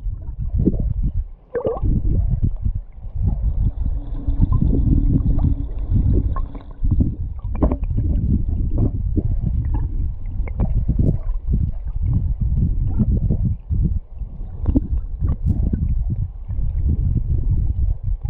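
Flowing river water recorded underwater: a muffled, continuous low rumble with gurgling and many irregular small knocks and pops.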